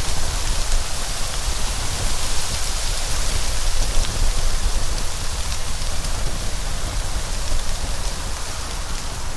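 Steady heavy rain: an even, continuous hiss with a low rumble underneath.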